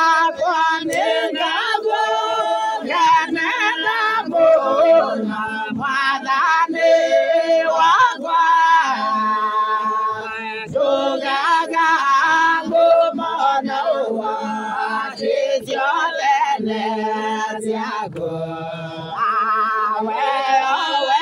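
A choir singing a gospel song in Kikuyu, with several voices together over a steady low note.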